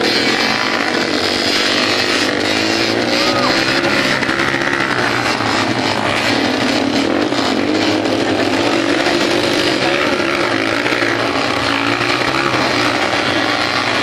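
Several motocross dirt bikes' engines revving hard at once, overlapping, as the bikes climb a steep dirt hill under load. Their pitches keep rising and falling against each other.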